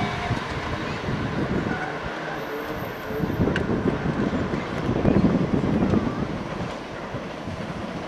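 A JR 185-series electric express train rumbling away into the distance along the track after passing a level crossing, with gusts of wind buffeting the microphone. A single sharp click comes about three and a half seconds in.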